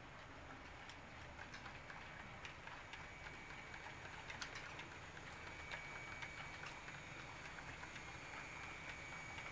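Model railroad train running past: faint whir of the locomotive motors with small irregular clicks of wheels over the track, slowly getting louder as the train nears. A high steady whine joins about halfway through.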